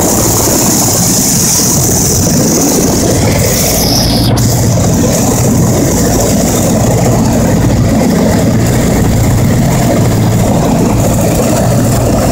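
Ford Tri-Motor's radial engines running steadily in cruise, a loud, even drone heard from inside the cabin. A high hiss over it drops away about four seconds in.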